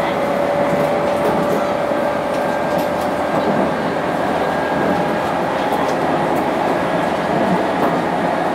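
Interior running noise of the Fruitia Fukushima, a converted 719-series electric multiple unit, travelling at steady speed: a continuous rumble of wheels on rail with a faint steady whine over it.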